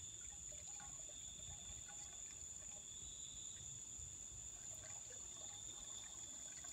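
Night insect chorus, a steady high-pitched trill held on two pitches without a break.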